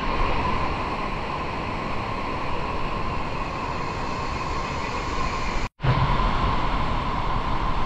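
Stream water rushing and splashing over rocks inside a cave, a steady noise broken by a brief gap about six seconds in.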